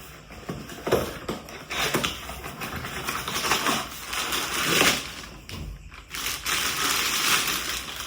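Plastic packaging crinkling and rustling, with light clicks and taps, as a kitchen oil pot is unwrapped and handled.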